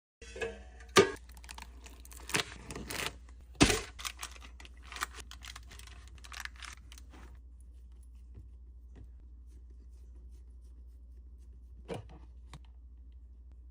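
Handling noises: a quick run of sharp clicks, knocks and rustling for about seven seconds. Then a low steady hum with a few soft clicks and one louder knock near the end.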